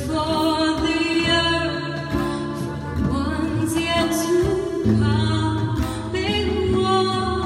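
A song: voices singing a melody over steady, sustained instrumental tones.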